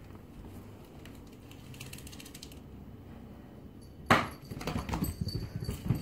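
A sharp knock about four seconds in, followed by a quick, irregular run of thuds and scrabbling as a cat leaps for a thrown toy and lands and scrambles on a hard floor.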